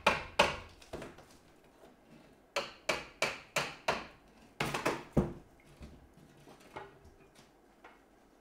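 Hammer blows on wood in quick runs, about three a second: two blows at the start, five more a little over two and a half seconds in, then four quicker ones just before five seconds, the last the loudest, followed by a few faint knocks.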